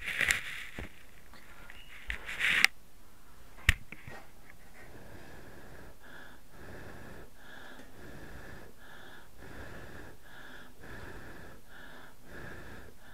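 A person blowing over a jar of melted paraffin to cool and set it: two loud breathy rushes in the first few seconds, then an even run of short puffs, a little more than one a second. A sharp click about four seconds in.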